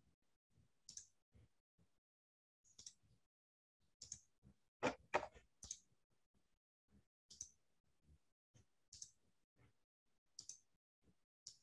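Faint, scattered clicks, with a louder cluster of several clicks about five seconds in, over near silence.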